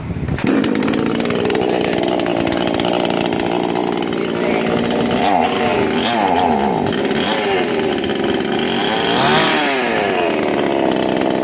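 A chainsaw comes on just after the start and runs, its pitch rising and falling as it is revved up and down several times.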